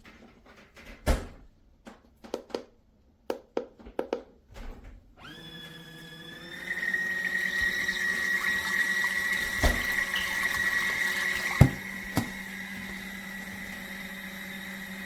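Portable mini washing machine: a few clicks and knocks, then about five seconds in its small electric motor starts up, settling into a steady hum with a high whine over water churning in the tub. After a sharp knock near twelve seconds the churning gets quieter while the motor keeps running, then everything cuts off abruptly at the end.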